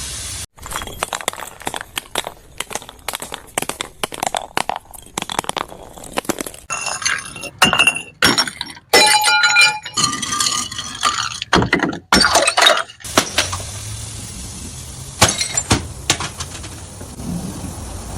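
Glass bottles breaking one after another, many sharp cracks and shatters with clinking, ringing glass shards, cut together in quick succession.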